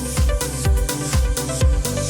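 Electronic background music with a steady kick drum beating about twice a second.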